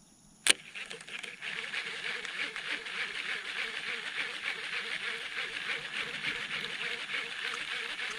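Baitcasting reel in use: a sharp click about half a second in as the cast is made, then a steady whirr from the reel as the spool runs and the handle is cranked to retrieve a spoon lure.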